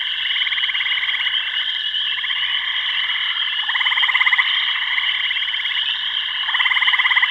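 A chorus of trilling frogs, with steady high trills and rapid pulsed trills that swell louder about every two to three seconds.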